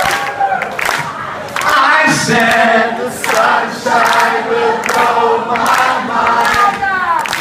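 Concert crowd singing along together in chorus, many voices at once, over the rock band's steady drum beat.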